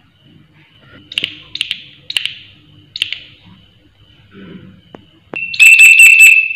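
Large leaf-mimicking green katydid singing by rubbing its wings. A few separate sharp, high chirps come in the first three seconds, then from about five seconds in a loud, rapid train of high-pitched rasping pulses.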